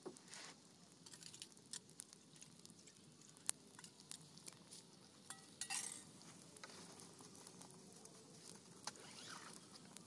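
Small fire of dry twigs crackling faintly, with scattered sharp pops and a brief rustle a little past halfway.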